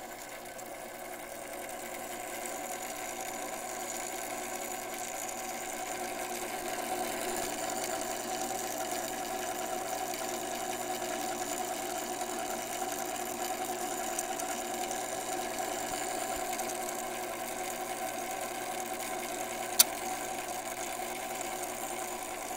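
Movement of a New Haven Westinghouse electric self-starting chime clock running with a steady mechanical hum, growing louder over the first few seconds, with one sharp click a few seconds before the end.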